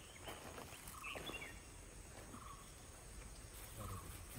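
Faint bird calls in forest: a short call repeated about every one and a half seconds, with a brief higher chirp from another bird about a second in.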